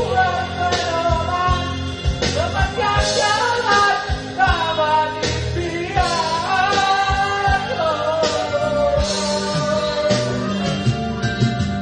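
A singer's voice over a band with a steady beat, bass and guitar, the melody gliding and bending in pitch.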